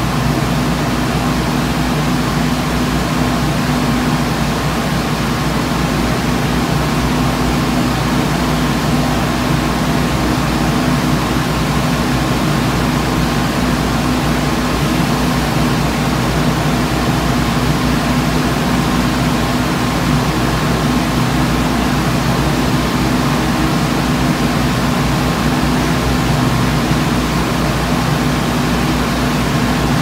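Electric floor fan running steadily: a constant rush of air with a low, even motor hum.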